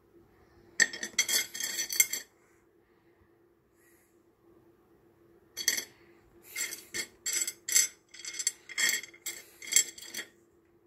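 Pieces of rough Lightning Ridge opal clinking against one another in a wet dish as a hand stirs through the pile: a quick run of clinks about a second in, then a longer spell of clinking from about halfway until near the end. A faint steady hum underneath.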